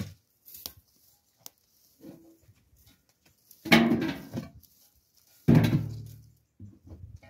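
A series of irregular knocks and thuds, the two loudest about halfway through and about three-quarters of the way in, each trailing off over roughly a second.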